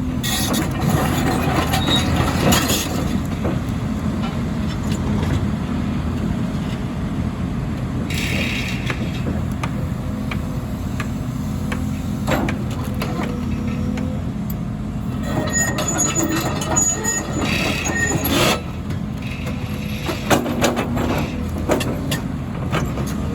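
Volvo EC300E excavator working, its diesel engine running steadily under load, with repeated clanks and scrapes of steel on broken asphalt. High metallic squeals come and go about two-thirds of the way through.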